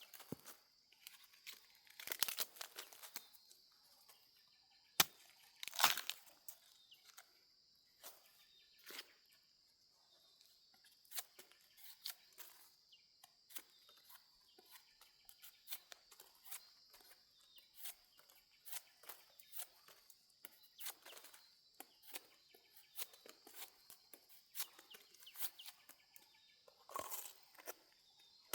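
Dry fallen leaves and twigs crackling and rustling irregularly, as they are trodden on or pushed aside, with a few louder snaps. A steady high-pitched drone sits underneath.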